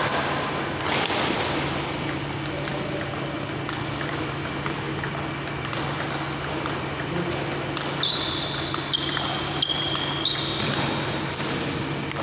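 Table tennis rally: a celluloid ball clicking off rubber paddles and bouncing on the table, in sharp irregular clicks, with the loudest hits in the last few seconds. A steady low hum runs underneath, and a few short high squeaks sound near the end.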